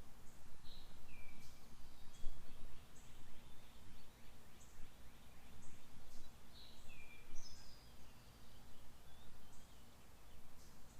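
Songbirds calling: two pairs of short chirps, one about a second in and one about seven seconds in, with a faint, very high short note repeating every second or so. A steady low background rumble runs underneath.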